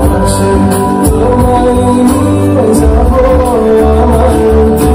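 Loud dance music with singing and a heavy bass beat, played over a sound system.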